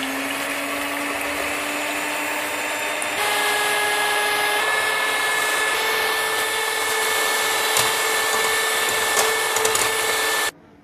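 Electric hand mixer whirring as its wire beaters whip egg whites to stiff peaks in a stainless steel bowl. The motor spins up at the start, its pitch steps higher about three seconds in, and it cuts off shortly before the end.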